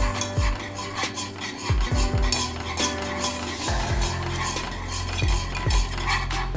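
Wire whisk stirring a thick milk mixture in a nonstick saucepan, its tines clinking and scraping against the pan in quick repeated strokes.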